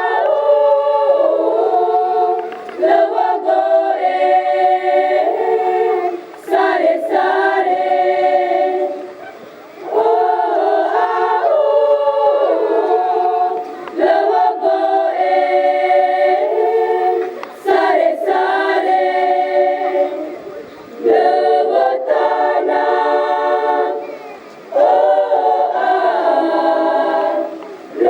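Mixed choir singing unaccompanied in several-part harmony, sustained phrases a few seconds long with short breaks for breath between them.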